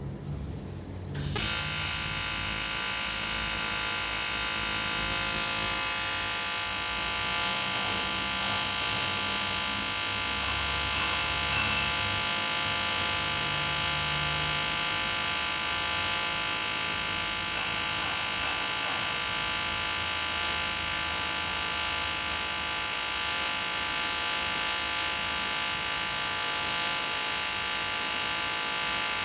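AC TIG welding arc on an aluminium motorcycle cylinder block, striking suddenly about a second in and then buzzing steadily with a high hiss.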